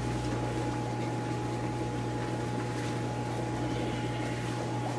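Steady hum and bubbling of aquarium air pumps and air-driven filters running in a fish room, with a constant low hum and a faint steady whine.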